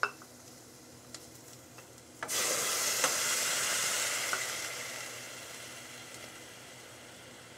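Broth poured from a measuring cup into a hot pot of cooking vegetables: a sudden loud sizzle about two seconds in as the liquid hits the hot pot, fading slowly over the next few seconds.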